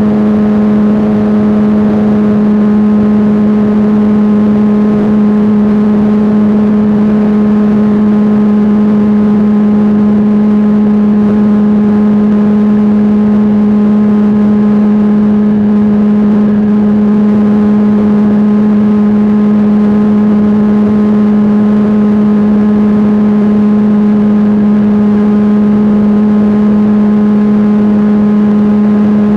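Radio-controlled model airplane's engine and propeller running at a steady high speed, heard loud and close from a camera mounted on the plane: one unchanging tone with no rise or fall in pitch.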